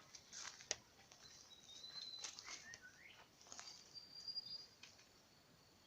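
Faint wild birdsong: short chirping calls and a few thin, high whistled notes, with scattered light clicks and rustles.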